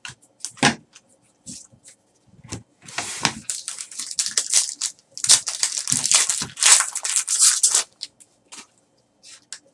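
Foil wrapper of a 2013 Panini Certified football card pack being torn open and crinkled by hand, in crackling bursts: a short one about three seconds in and a longer one from about five to eight seconds in. A couple of light clicks near the start come from cards being handled.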